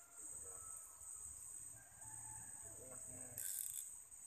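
A steady high-pitched drone from a chorus of crickets or similar insects, with a few faint animal calls in the distance. About three and a half seconds in there is a brief, louder hissing rush.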